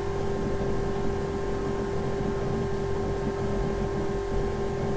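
A steady background hum with one strong constant tone and a low even noise, unchanging throughout.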